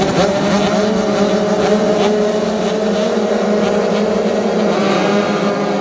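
A field of 85cc two-stroke dirt bikes running together at the start line of a flat-track race, several engines held at steady revs. Their pitch shifts a little about five seconds in.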